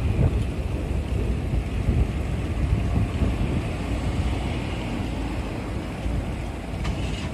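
Wind rushing and buffeting over the microphone of a camera on a moving bicycle, a steady low rumble with road noise underneath.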